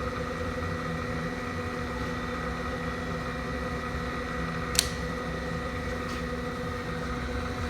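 Bridgeport vertical milling machine running steadily with its 1 hp three-phase motor driving the spindle and the quill power downfeed engaged, feeding the spindle down: an even machine hum with steady tones. A single sharp click about five seconds in.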